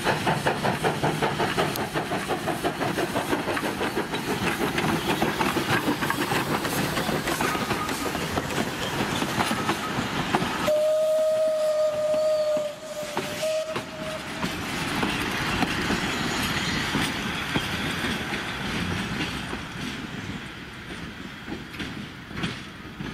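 Steam locomotive C22, a 1902 Beyer Peacock 2-6-0, working past with a steady beat of exhaust puffs. About eleven seconds in, a whistle sounds for about three seconds with a short second toot. The carriages then roll past with wheels clicking over the rail joints, fading as the train moves away.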